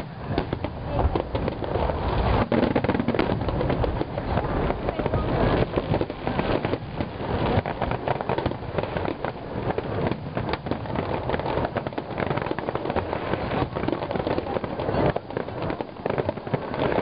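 Fireworks bursting in quick succession: a dense, unbroken run of bangs and crackles.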